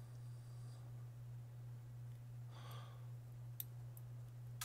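A soft exhale about two and a half seconds in, over a steady low hum. A couple of faint clicks of a precision screwdriver on a small plastic drone frame come near the end.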